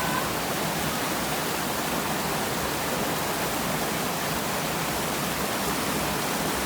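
A steady, even rushing hiss that holds at one level throughout.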